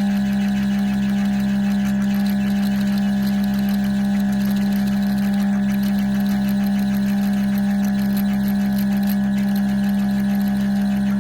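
Electric motor of a mill-drill running at a steady speed, a constant loud hum.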